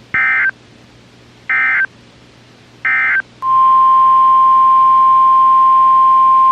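Three short bursts of warbling SAME digital data tones from a NOAA Weather Radio Emergency Alert System broadcast, then the steady single-pitch 1050 Hz weather radio alert tone starting a little over three seconds in and holding.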